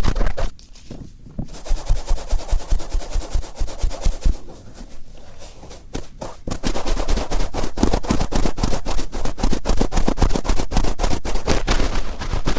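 Cotton swab rubbed firmly into the ear of a binaural microphone, a close, crackling scratch of quick strokes. Irregular with short lulls at first, then about halfway through it settles into fast, even strokes several times a second.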